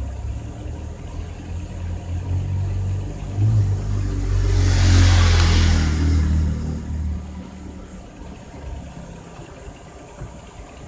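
A motor vehicle driving past: a low engine rumble that builds, peaks with a rush of noise about five seconds in, then fades away.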